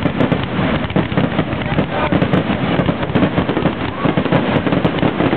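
Aerial fireworks shells bursting in a dense, continuous barrage of overlapping bangs and crackling, with no break.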